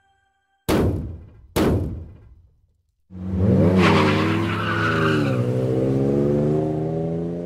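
Logo sting sound effect: two sharp hits about a second apart, each ringing out briefly, then a loud, deep droning sound of several tones that bends up and down in pitch.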